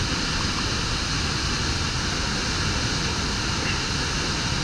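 Bridal Veil Falls at Niagara heard close up from its base: a steady, dense rush of falling water and spray with no letup.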